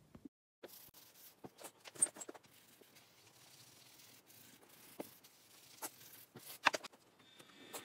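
Track rubber, an abrasive cleaning block, scrubbing back and forth along OO gauge model railway rails to clean glue off the railheads. It makes a faint scratchy rubbing broken by a few short, sharper scrapes and clicks.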